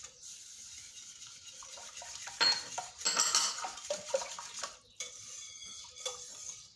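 Wire whisk beating a thin batter in a ceramic mixing bowl, its wires clinking and scraping against the bowl in quick, irregular strokes.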